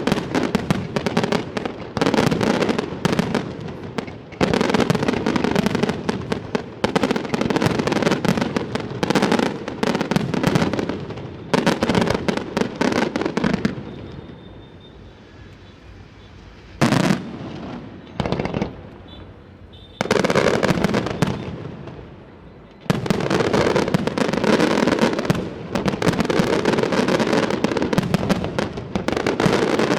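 Aerial fireworks display: rapid barrages of shell bursts and crackling. About halfway through it eases off for several seconds, broken by a couple of single sharp bangs, then the dense barrage resumes.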